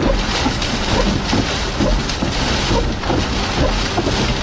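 Strong storm wind from a nearby tornado buffeting the microphone: a loud, steady rush with a heavy low rumble.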